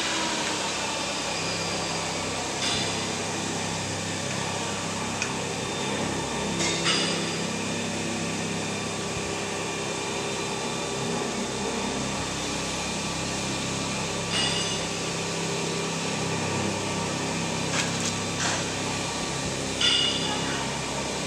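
Steady machine hum of a roll-winding machine and its surroundings, with several short clicks and knocks spread through, the loudest near the end, as roll-loading parts and controls are handled.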